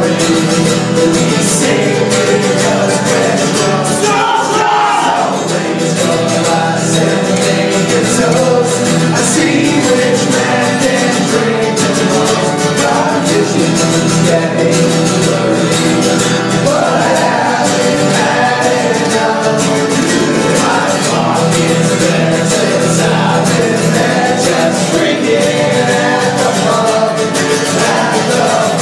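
Live acoustic band playing: two acoustic guitars and a mandolin strumming, with the men singing together in a group vocal, all three voices at once near the end.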